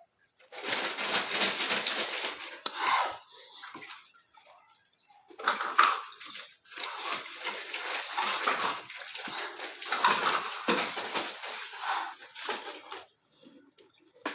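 Eating pasta: a utensil clattering and scraping against a dish in long, irregular noisy stretches, with a short pause about four to five seconds in.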